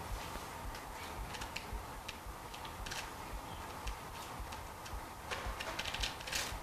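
Chalk tapping and scraping on a blackboard as arrows are drawn: scattered sharp clicks, with a quick run of them near the end.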